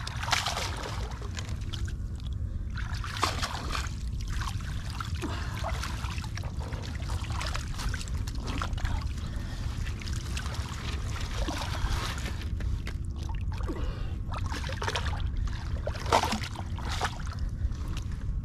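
Water splashing and trickling around a small fishing boat at sea, in irregular splashes over a steady low rumble.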